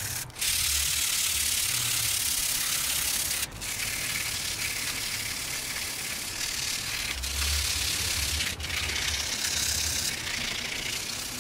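80-grit sandpaper rubbed by hand over the edge of an alloy wheel rim, a continuous scratchy rasp, to grind out deep curb-rash scratches. It breaks off briefly three times.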